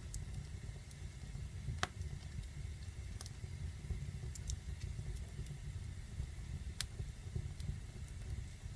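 Fire burning in a fireplace: a steady low rumble with scattered sharp crackling pops, the loudest about two seconds in.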